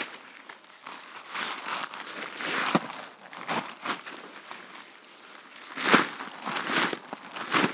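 Fabric camping gear rustling and flapping as it is shaken out by hand, in a string of irregular bursts, the loudest about six seconds in.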